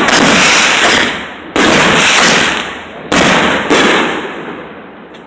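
Fireworks exploding: three bursts about a second and a half apart, each a sudden bang trailed by a noisy tail that fades over a second or two.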